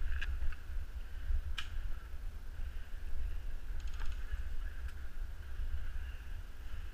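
Muffled, steady low rumble from a GoPro in its underwater housing being carried and moved, with a few sharp clicks and a short rapid run of ticks about four seconds in.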